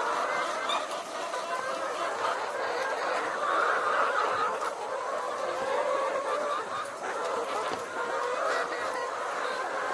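A flock of chickens clucking continuously, many birds calling over one another.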